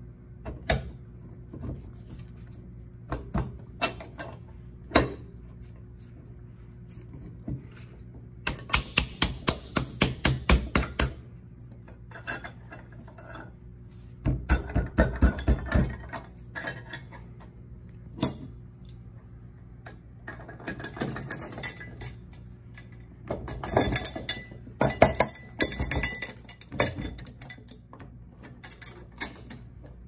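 Metal clinks, clicks and knocks from a heavy-duty swivel caster being handled as a wheel lock is fitted to it, in scattered single taps and several bursts of quick ticks, over a low steady hum.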